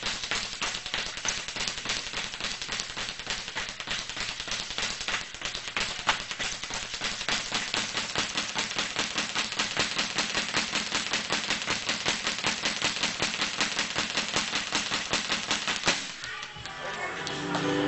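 Boxing speed bag being punched in a fast, steady rattle of several hits a second. The hitting stops about two seconds before the end, and guitar music comes in.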